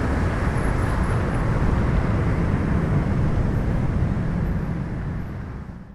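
Boeing 777-200LR's GE90 turbofans at takeoff thrust on climb-out, a steady deep rumble. It fades over the last second or so, then cuts off sharply.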